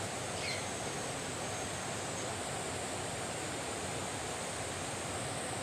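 Steady rushing of flowing water, with a brief faint high chirp about half a second in.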